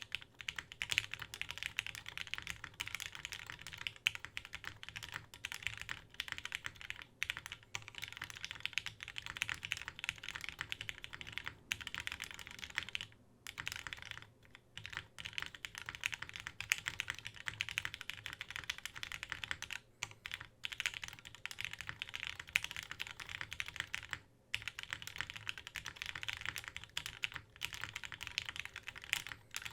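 Continuous fast typing on a mechanical keyboard with lubed Gateron Lion linear switches, keycaps set in a polycarbonate plate: a dense stream of key clacks, with a few short pauses.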